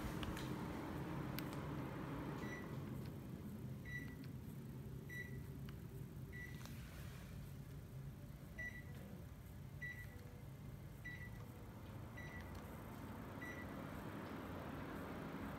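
Panasonic mini split air conditioner beeping nine times, short high beeps about a second apart with one longer pause, over the steady hum and airflow of the unit, which eases off in the first few seconds.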